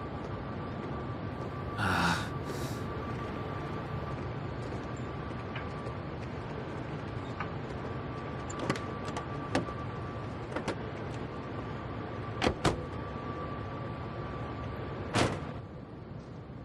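Steady background hum with a faint high tone, broken by a soft rustle about two seconds in and then scattered light clicks and knocks: a few singly, a close pair, and a louder one near the end.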